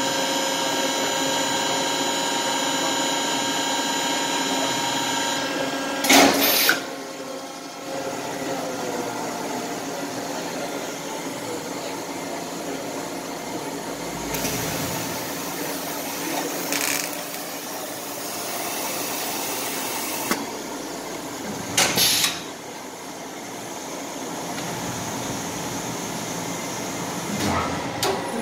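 Automated vinyl record press running: a steady machine hum with several even tones for the first few seconds, then a noisier run. Two short loud blasts come about six seconds in and again about 22 seconds in, with a longer high hiss in between.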